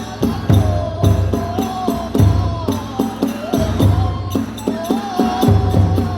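Kagura hayashi accompaniment: a transverse bamboo flute playing a wavering melody over steady beats of a large drum and the clash of small hand cymbals, several strokes a second.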